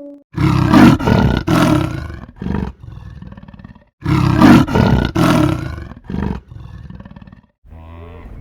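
Big cat roaring: a few loud roars trailing off into quieter, shorter grunts, and the same roar bout heard twice in a row. A different, quieter sound starts near the end.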